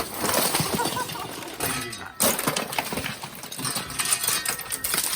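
Icicles being broken off and shattering, with a sharp crack at the start, a run of clinking pieces, and another crack about two seconds in.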